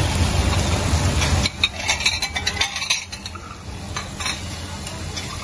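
A metal spatula scraping and clicking on a flat iron griddle as fried noodles are scooped onto a plate, over food sizzling on the hot iron. A steady low rumble cuts off suddenly about a second and a half in, and a run of quick scrapes and clinks follows.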